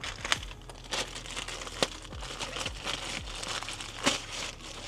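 Parts packaging crinkling and rustling as new engine parts are unwrapped, with a few sharp clicks or taps.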